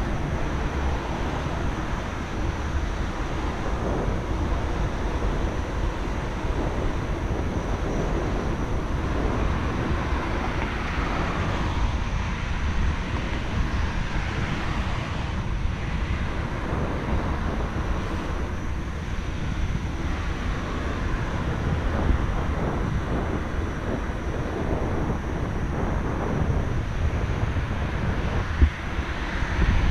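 Steady wind rumble on the camera microphone at riding speed, over the noise of road traffic on a wide street.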